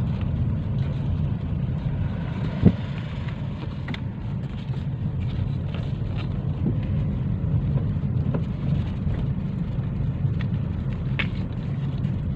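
Steady low road and engine rumble heard from inside a moving car's cabin, with one sharp click a little under three seconds in and a few faint ticks.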